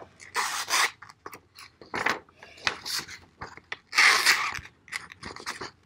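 Fixed-blade knife with an AUS-8 stainless blade slicing through a sheet of printer paper in a paper-cutting sharpness test. The paper rasps and crinkles in uneven strokes, loudest about four seconds in.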